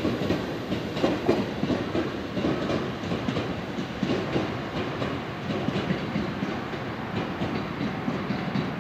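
JR Central commuter train's wheels clattering over the rail joints in a steady clickety-clack as it runs away, slowly fading.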